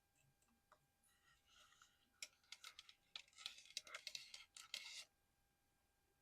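Close-miked ASMR tapping and scratching on small collectible items. A quick run of light clicks and scratchy rustles starts about a second in, grows busier, and cuts off suddenly about a second before the end.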